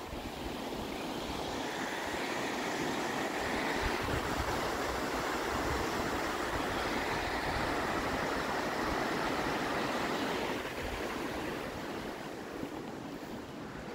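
Rushing creek water over rocks, a steady wash that builds over the first couple of seconds, holds, then fades a few seconds before the end.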